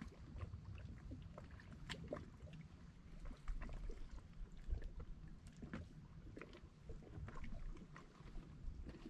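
Water lapping at a rocky lakeshore under a low rumble, with scattered small clicks from a fishing rod and spinning reel being handled.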